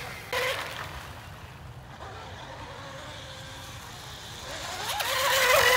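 Brushless 2845 motor of a homemade RC rigger boat whining at high speed. The whine drops away within the first second as the boat runs off, then grows louder again near the end, its pitch bending as the boat comes back past.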